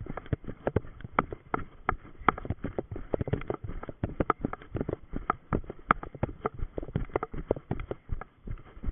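Running footsteps on a forest dirt path, picked up by a body-worn camera that jolts with every stride: a quick, irregular patter of thuds and knocks.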